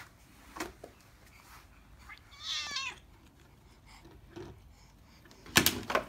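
A domestic cat meows once, a short wavering call, about two seconds in. Near the end, the loudest sound: a plastic water bottle knocked over, clattering on the wooden floor.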